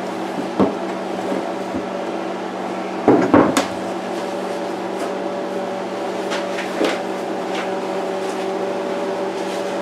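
A few knocks and clinks of steel parts handled on a wooden workbench, the loudest pair about three seconds in, over a steady machine hum.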